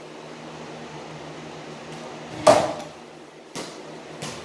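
A mini basketball shot at a small wall-mounted hoop: the ball hits the backboard and rim with one loud knock and a brief ring about two and a half seconds in, then two lighter knocks follow. A steady low hum runs underneath.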